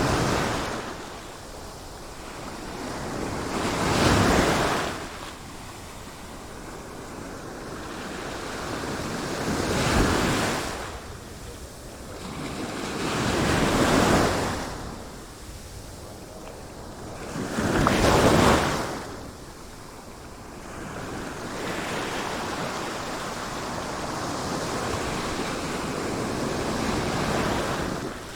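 Sea waves breaking in repeated swells: four loud surges a few seconds apart, then a longer, gentler wash of surf toward the end, with wind noise underneath.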